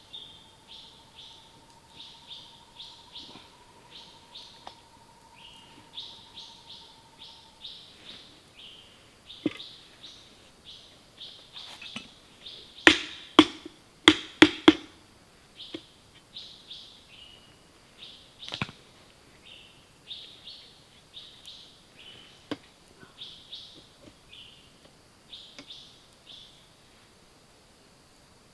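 A hammer striking the top of a wooden frame-saw arm, about five sharp knocks in quick succession around halfway through, with a few single knocks before and after. Rapid, repeated high bird chirps continue underneath.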